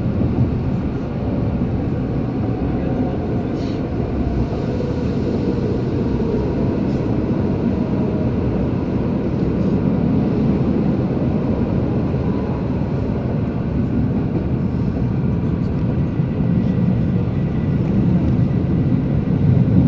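MI09 RER train running between stations, heard from inside: a steady rumble of wheels and running gear with a faint motor whine slowly shifting in pitch, growing a little louder near the end.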